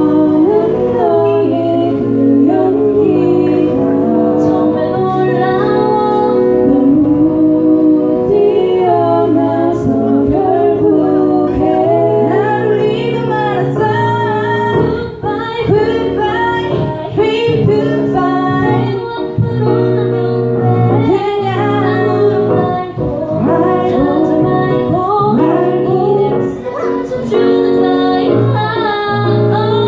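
Four young women singing a pop song together through microphones, their voices in harmony, with keyboard accompaniment.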